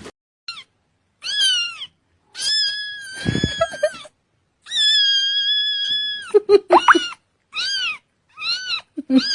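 A cat meowing over and over in high-pitched calls, most short and arching up and down in pitch, two of them drawn out and held for well over a second. A low thud comes about three seconds in.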